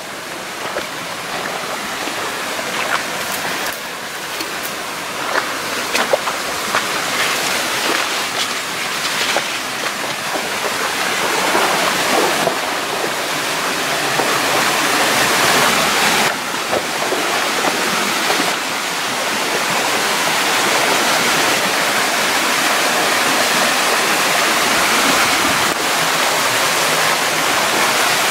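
Small waterfalls, three thin streams pouring off an earth bank and splashing into a pool: a steady rush of falling water that grows louder as it is approached. A few brief clicks break in during the first ten seconds.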